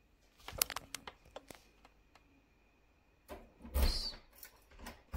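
Keys clinking and a key turning in a kitchen door's cylinder lock: a run of small metal clicks, then a louder clunk of the lock mechanism about four seconds in, and a few more clicks near the end.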